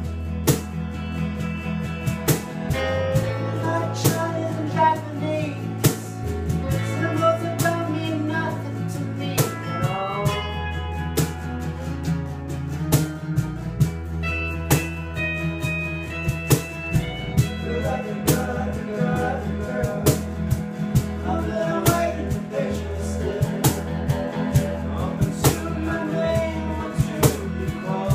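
A small acoustic-electric band playing a song live: strummed acoustic guitar, electric bass, electric guitar and a cajón keeping a steady beat, with a man singing over it.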